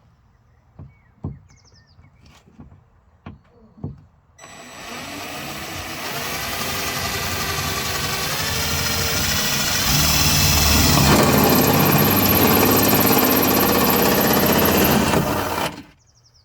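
Power drill boring a grommet hole through the car's sheet-metal body. It runs for about eleven seconds, getting louder, with a high squeal joining about two-thirds of the way through, then stops suddenly. A few light taps come before the drill starts.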